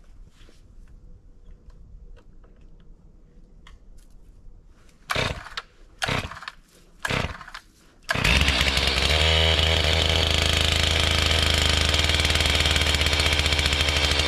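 Gas chainsaw being pull-started: three short pulls that don't catch, then about eight seconds in it fires and runs steadily and loudly.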